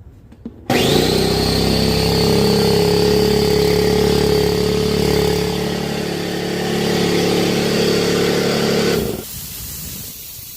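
Husky 26-gallon air compressor starting up, its motor spinning up with a quick rising whine, then running steadily with a loud hum until it cuts off about nine seconds in.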